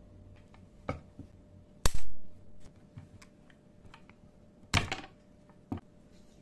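Sharp clicks and snaps of metal pliers working a small black plastic strain-relief grommet on a keyboard cable. The loudest snap comes about two seconds in, a loud cluster of clicks just before five seconds and another near six, with small ticks in between.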